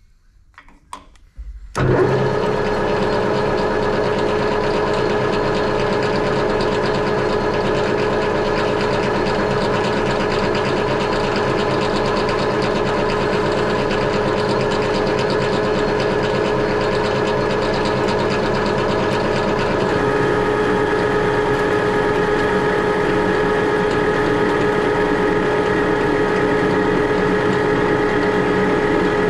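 Metal lathe starting up about two seconds in, then running steadily as its four-jaw chuck spins a round bar that the lathe tool is turning down. A steady machine hum with several held tones, shifting slightly about two-thirds of the way through.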